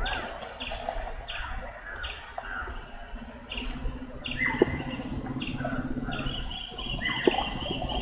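Birds calling: short high chirps repeated about twice a second, a few lower falling notes, and a rapid trill starting about six seconds in.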